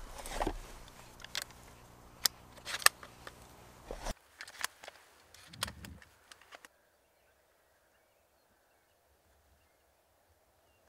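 Sharp clicks and knocks from hunting gear being handled in a blind, a dozen or so separate strokes, the loudest between two and three seconds in. From a little before seven seconds in, near silence.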